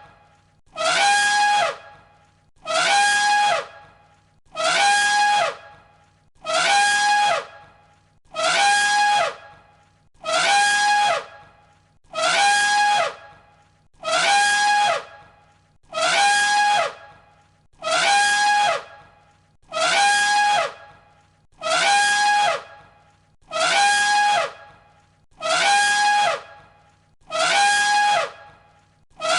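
Elephant trumpeting: the same short, slightly falling trumpet call repeated in a loop, about once every two seconds.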